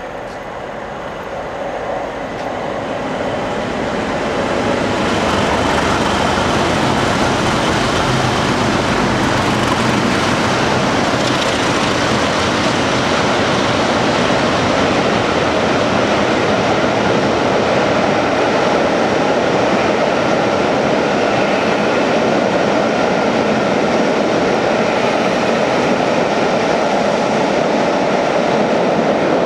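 Class 37 diesel locomotive's English Electric V12 engine, double-headed with a Class 33 whose Sulzer engine is largely drowned out, approaching and passing under power with a train of coaches rolling past on the rails. The sound builds over the first few seconds and then stays loud and steady.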